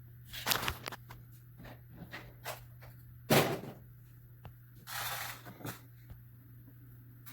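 Scissors cutting through 20-gauge copper sheet: a run of separate snips and clicks, the loudest a little over three seconds in, with a short rasp of metal around five seconds.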